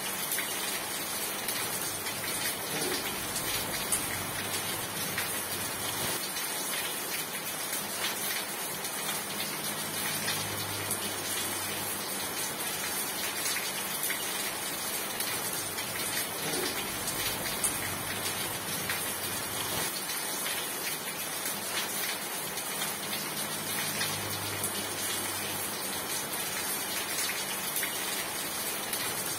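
Steady rain falling, a continuous even hiss of many drops hitting a surface.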